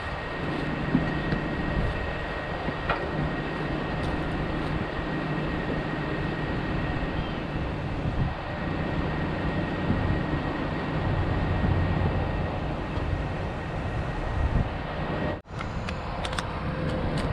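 Dump truck engine idling steadily with a low hum, along with a faint steady high whine.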